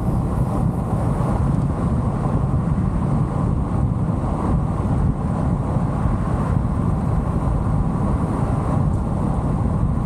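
Steady low road noise of a car being driven, an even rumble with no change in pace.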